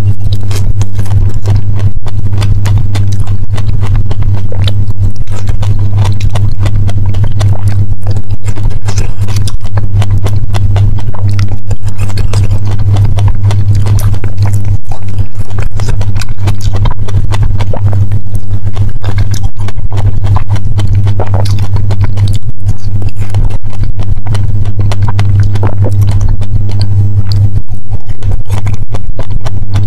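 Close-miked chewing of fresh strawberries: a dense run of wet mouth clicks and squelches, with more bites taken along the way. A loud steady low hum runs underneath.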